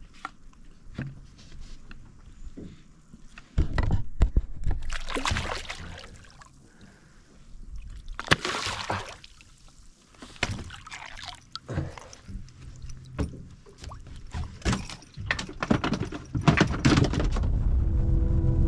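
Knocks and thuds in a small fishing boat, mixed with several loud rushing, splashy bursts, the biggest about four and eight seconds in.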